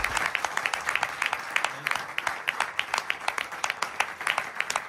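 Small audience applauding: many hands clapping at once, with separate claps standing out.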